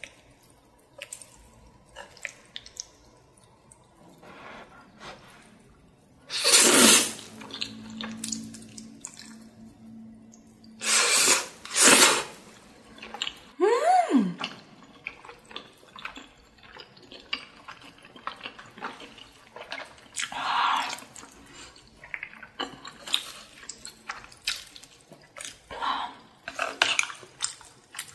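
Close-miked wet eating: chewing and several loud slurps of rosé-sauced flat glass noodles and spicy braised octopus. Near the middle comes a short hummed 'mm' that rises and falls in pitch.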